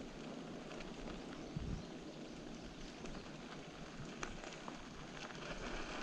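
Mountain bike tyres rolling from pavement onto a dirt road: a steady, fairly faint rolling noise with scattered small crackles and ticks of grit under the tyres.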